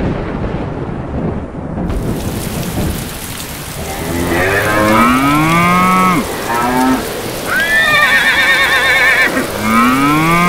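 Thunder rumbling over steady rain for the first few seconds. Then, from about four seconds in, horses whinny several times, long quavering neighs that fall in pitch, with the rain still going underneath.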